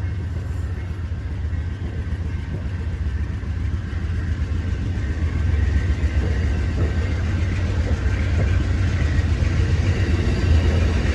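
Diesel locomotive rumbling past with a heavy low engine drone. The sound grows louder about halfway through.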